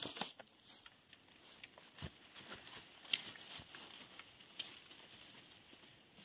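Footsteps crunching and rustling through dry leaves and bamboo litter, with scattered twig snaps, growing fainter near the end as the walker moves away.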